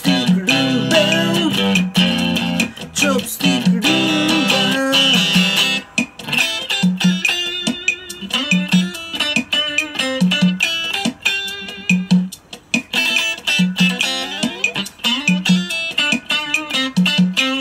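Ibanez electric guitar playing a Latin rumba melody line, dense runs of single notes, over a rhythm box's steady beat.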